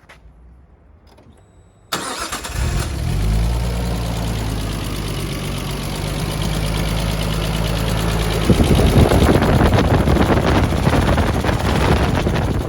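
The turbo-converted RB25 straight-six in an R33 Skyline comes in suddenly about two seconds in and runs, getting louder and rougher near the end. The owner hears a knock from the cylinder head in it and suspects a failed lifter.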